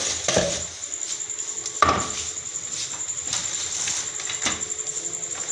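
Steady, rapid high chirping of crickets, with a single sharp clink of crockery about two seconds in.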